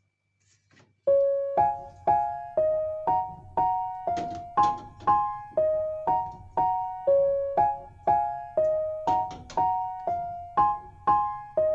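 Background music: a gentle keyboard melody in evenly spaced single notes, about two a second, starting about a second in after a brief silence.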